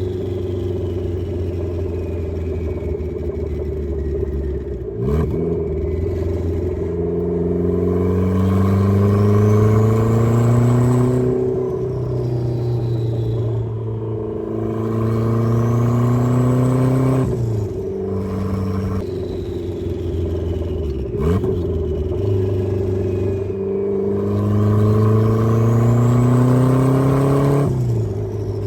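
Turbocharged Mazda Miata four-cylinder engine pulling hard several times in a row, its pitch climbing steadily over several seconds, with a turbo whistle rising in pitch as boost builds. Each pull cuts off abruptly as the throttle lifts, and the engine pitch drops before the next pull.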